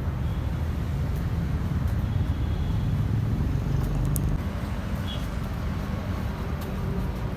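Road traffic: a steady low rumble of passing vehicles, louder for a few seconds in the first half.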